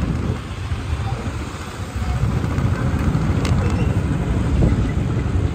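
Loud, distorted bass from a large DJ sound system being tested, a dense low rumble with no clear beat that grows louder about two seconds in.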